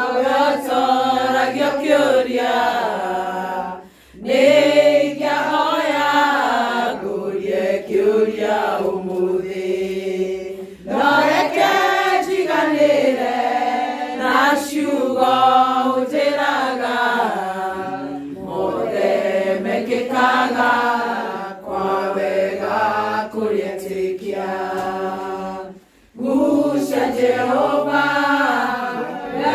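A group of women singing a hymn together unaccompanied, in unison phrases, with short pauses for breath about four seconds in and again near the end.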